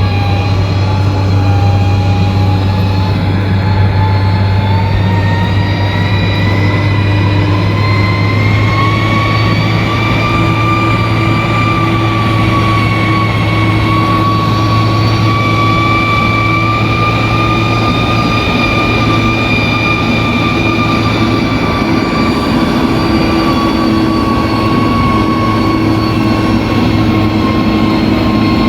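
Bulldozer diesel engine running steadily under load, with a deep hum and a high whine that rises in pitch over the first ten seconds or so and then holds.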